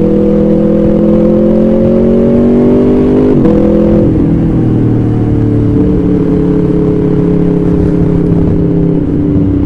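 Motorcycle engine and exhaust under way. The note rises steadily as it accelerates, breaks sharply at a gear change about three and a half seconds in, then drops back and holds a steadier pitch as the throttle eases.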